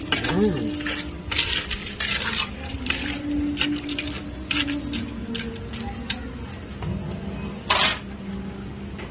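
Metal spoon scraping and clinking against the inside of an aluminium cooking pot as macaroni and vegetables are stirred, in irregular strokes, with one louder clank near the end.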